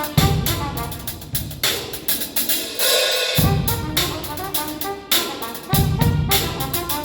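Concert band playing a traditional New Orleans jazz number: brass and saxophones over a drum kit keeping a steady beat. About two seconds in the bass and drums drop out briefly under a bright, hissing wash before the full band comes back in.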